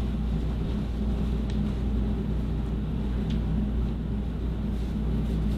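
Paper towel rubbing along a katana blade as oil is wiped off, faint over a steady low hum, with two light clicks.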